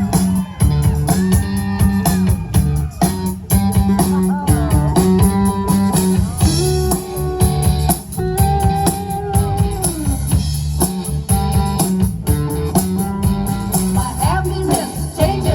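Live rock band playing the opening instrumental of a song: electric guitar lines over bass and a steady drum beat.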